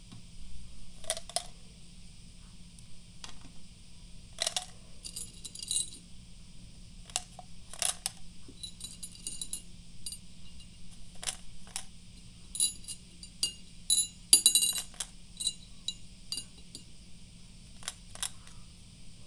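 Meiji Coffeebeat chocolate candies being picked off a ceramic plate and dropped by hand into their cardboard tube: scattered light clicks and clinks, some coming in quick rattling clusters, the loudest a little past the middle.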